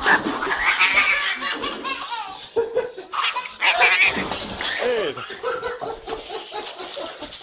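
People laughing out loud in fits and bursts, a child's giggling among them.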